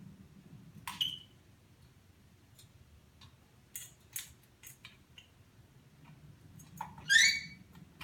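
African grey parrot making scattered sharp clicks, then a short, loud whistled call near the end.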